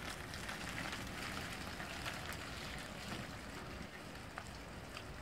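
Faint steady hiss of tyres on wet tarmac as an electric-converted Fiat 500 drives off, its electric motor all but silent; the hiss eases a little under four seconds in as the car draws away.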